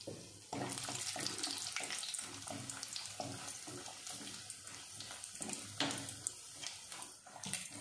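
Cashew nuts and cardamom sizzling with fine crackles in hot oil and ghee in an aluminium pressure cooker while they are stirred with a spatula. The sizzle starts about half a second in, with a couple of louder clicks later on.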